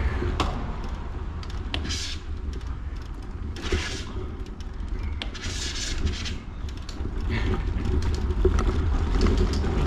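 Outdoor riding noise: wind buffeting the microphone with a steady low rumble, and a few louder passing rushes of hiss about 2, 4 and 6 seconds in.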